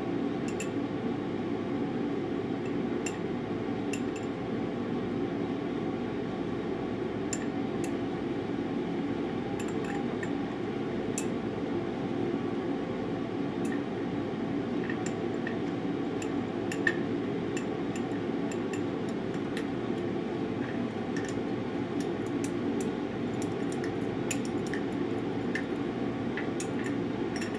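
Glass stirring rod clinking and scraping against the inside of a small glass beaker as it knocks deposited copper off an aluminum wire, in scattered light clicks. A steady low hum runs underneath.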